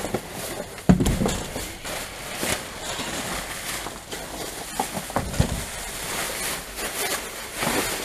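Clear plastic bag crinkling and rustling as gloved hands rummage through it, with a few knocks of items and cardboard shifting, the loudest about a second in.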